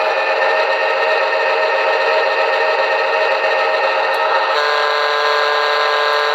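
Sampled diesel locomotive engine sound from a QSI Maxx Traxx model-train sound unit, played through a speaker, running steadily with a pulsing chug. About four and a half seconds in, its pitch and tone step to a new engine speed.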